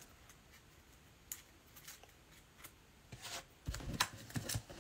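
Faint handling of chromium trading cards (2021 Panini Prizm football): a few isolated light clicks at first, then a run of soft clicks and rustles from about three seconds in as a stack of cards is gathered up.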